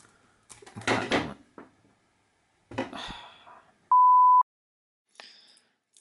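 Scissors cutting through a strip of heavy-duty Velcro about a second in, with a second scraping cut near three seconds. Right after it comes a loud half-second beep at one steady pitch.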